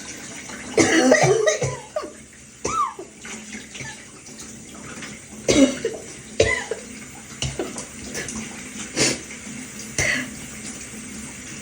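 A person's wheezy coughing over a running shower: a short bout of coughs about a second in, then single coughs spread out, with a pitched wheeze on one breath near the start.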